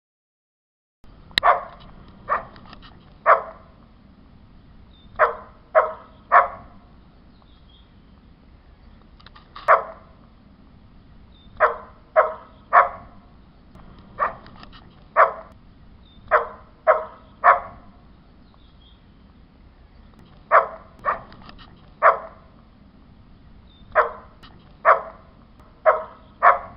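Dog barking in short runs of two to four barks with pauses between them, starting about a second in after silence, over a faint steady low background hum.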